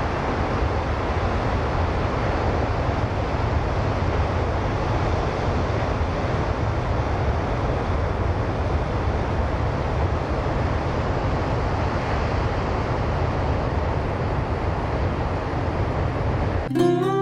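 Ocean surf and wind noise on the microphone, a steady rush with a deep rumble underneath. Acoustic guitar music comes in at the very end.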